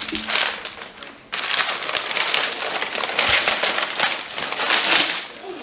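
Gift wrapping being crinkled and torn as a present is unwrapped: a dense run of crackling rustles, with a brief pause about a second in.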